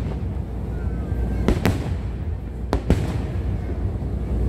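Fireworks show: sharp bangs of shells bursting, one about a second and a half in and two close together about a second later, over a steady low rumble, with a faint whistle about a second in.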